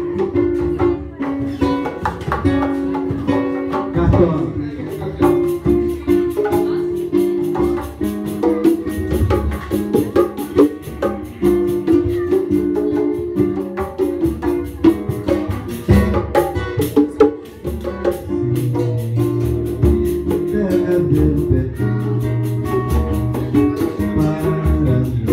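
Live band music: plucked guitars and bass, with percussion coming in about five seconds in and keeping a steady fast beat.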